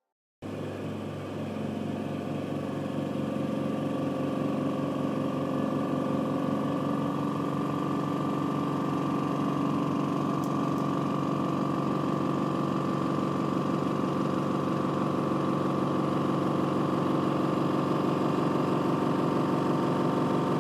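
Black-Mamba IM 100 VS, a silent oil-free piston compressor in a case, starting abruptly and running with a steady hum that grows slightly louder over the first few seconds.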